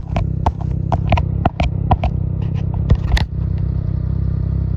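Snowmobile engine running steadily underway, with a quick run of sharp knocks and clatter over the first three seconds or so.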